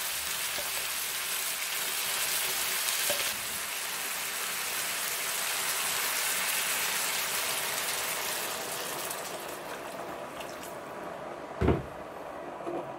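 Shrimp and vegetables sizzling in an electric skillet as tom yum paste and liquid are spooned in and stirred. The sizzle fades over the last few seconds, and there is a single thump near the end.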